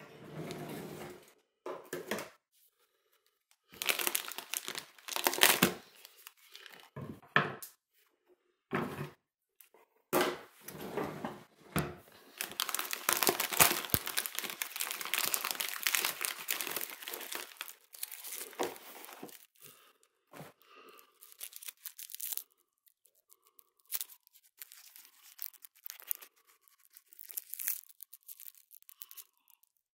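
Packaging of Lindt chocolate truffles torn open and crinkled by hand, in irregular bursts of rustling, busiest in a long stretch in the middle, then scattered crackles as a wrapped truffle is handled.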